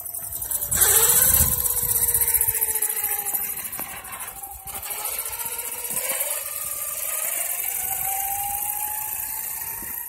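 Electric whine of a Losi DBXL 1/5-scale buggy's 8S brushless motor and drivetrain as it tows a loaded cart over asphalt. The pitch dips and rises with the throttle, the sound is loudest about a second in, and the whine climbs steadily through the second half.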